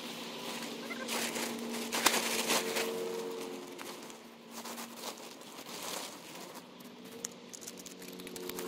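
Rustling and crinkling of camping gear being handled while a camp is set up, with a sharper crackle about two seconds in. A few faint steady low tones run underneath.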